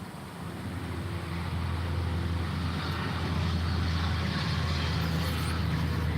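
A motor running steadily with a low hum and a hiss, growing louder over the first second and a half and then holding even.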